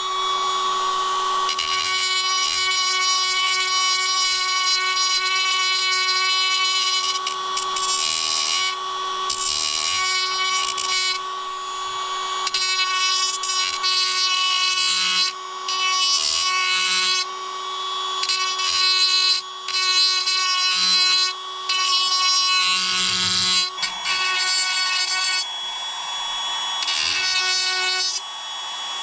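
A small handheld electric power tool running steadily with a high motor whine, its sound changing and dipping briefly several times as it works on the part.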